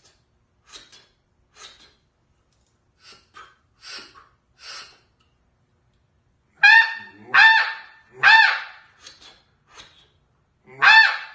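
Ya Ya Calls 'Traffic Control' snow goose call blown by mouth: first a series of soft, breathy puffs of air, then, about two-thirds of the way in, loud high honks imitating snow geese, three in quick succession, two faint ones, and another loud one near the end. Each honk rises and falls in pitch.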